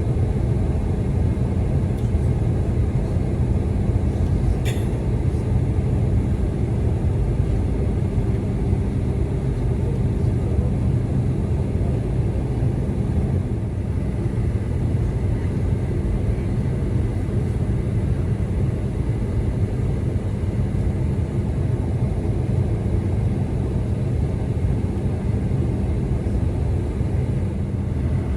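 Steady low rumble of a Boeing 747-400's cabin, heard from a passenger seat, with one brief click about five seconds in.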